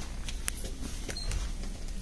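Low steady hum of a shop's background noise, with a few faint clicks, as of goods being handled.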